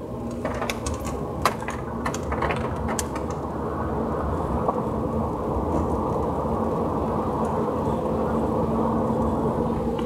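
Vehicle cabin noise: a steady engine and tyre rumble that grows louder over the first few seconds, with a few sharp clicks in the first three seconds.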